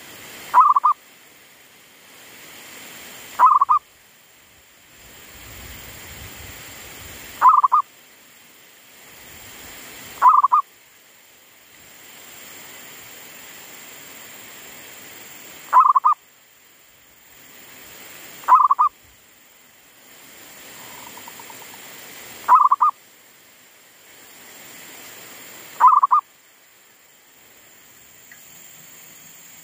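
Zebra dove giving short, loud cooing calls, eight in all, each well under half a second and spaced a few seconds apart.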